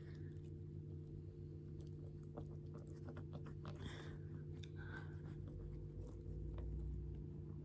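Purple slime being kneaded and squeezed between the fingers: faint, sticky squishing with small crackling clicks, a couple of louder squelches about four and five seconds in.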